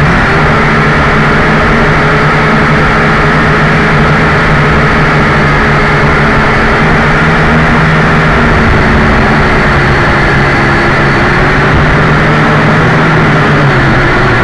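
JJRC H12C quadcopter's motors and propellers buzzing steadily and loud, picked up close by its own onboard camera, over a hiss of rushing air. The pitch wavers slightly near the end.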